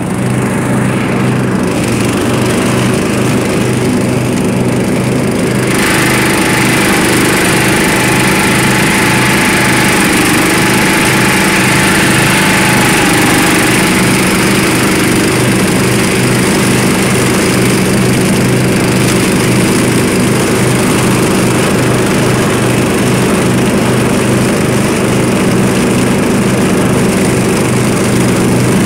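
Murray lawn mower engine running steadily while bagging leaves. About six seconds in, a louder rushing hiss joins the engine note and continues.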